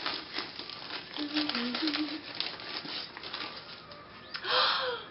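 Wrapping paper rustling and crinkling as a gift-wrapped book is unwrapped by hand, with a louder rustle near the end.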